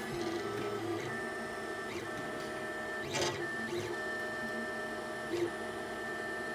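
Monoprice Select V2 3D printer running, its stepper motors whining in several steady tones that switch on and change pitch as the print head and bed move. There is a brief sharp click about three seconds in.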